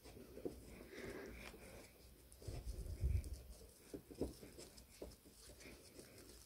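Thick twisted fibre rope rubbing and rustling against itself and against skin as hands work it into a knot, with small clicks throughout. A few dull low knocks come near the middle.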